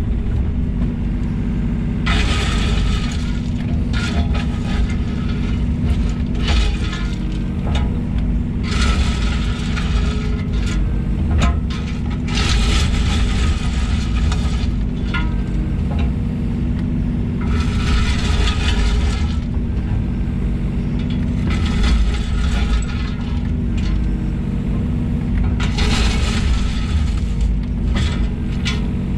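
Takeuchi TB125 mini excavator's diesel engine running steadily under load. About seven stretches of gravelly scraping and hiss, each a second or two long, come as the bucket pushes and drops 4-inch drainage stone.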